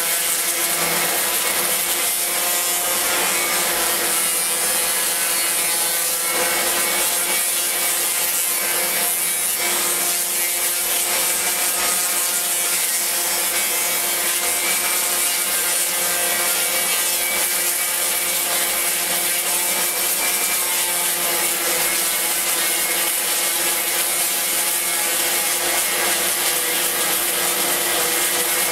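Electric random orbital sander running steadily while sanding a wooden speargun stock, its motor hum under a continuous hiss of abrasive paper on wood.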